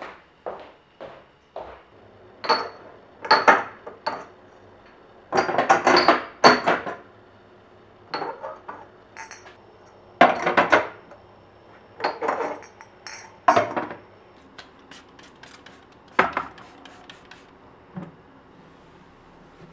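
Dishes and kitchen utensils clinking and clattering as they are handled and set down, in a string of irregular knocks, with a cluster of louder clatters in the middle.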